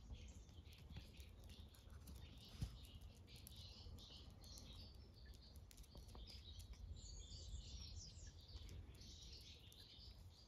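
Near silence: faint chirping of small birds in the distance over a low steady rumble, with one short knock about two and a half seconds in.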